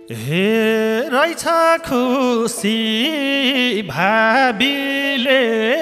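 Dohori folk singing: a single voice drawing out a wordless phrase, sliding and ornamenting between held notes.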